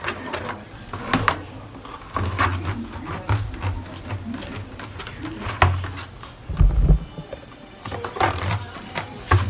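Handling noise: irregular clicks and knocks with short, dull low thumps. The loudest thump comes about two-thirds of the way through.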